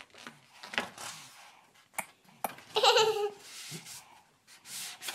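Paper pages of a picture book rustling as a child handles and turns them, with a couple of light taps and a brief child's vocal sound about three seconds in.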